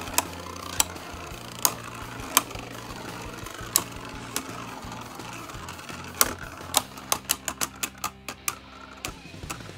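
Two Beyblade Burst tops, a 3D-printed Ares and Maximum Garuda, spinning in a plastic stadium and clacking against each other. Single sharp clicks are spaced out at first, then a quick run of hits comes over the last three seconds.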